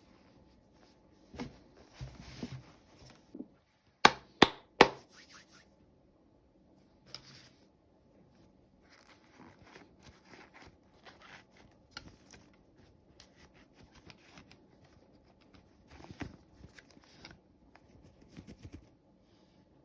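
Toy packaging being handled and opened by hand: scattered rustles and light taps, with three sharp clicks in quick succession about four seconds in.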